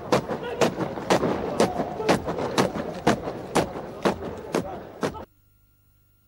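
A massed honour-guard formation goose-stepping in unison, its boots striking the pavement together about twice a second over a background haze. The marching cuts off abruptly about five seconds in, leaving near silence.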